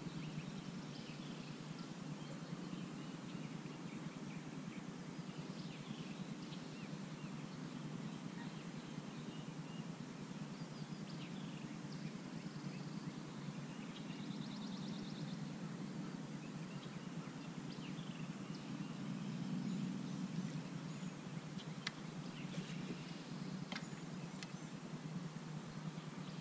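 Lakeside ambience: birds chirping faintly here and there, with a short rapid trill about halfway through, over a steady low hum. Two sharp ticks come near the end.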